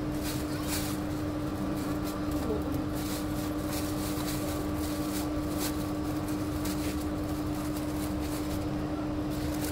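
Steady street background with a constant motor hum and low rumble, broken by short crinkles of a thin plastic bag as a takeaway soup order is packed and tied.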